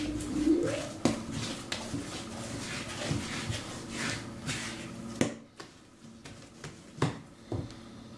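Hands kneading soft yeast dough on a silicone baking mat: squishing and pressing with irregular dull thumps, the sharpest about a second, five seconds and seven seconds in.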